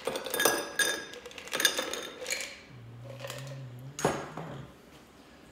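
Ice cubes dropped into a drinking glass, clinking and rattling in quick succession for about two and a half seconds, then one more sharp clink about four seconds in.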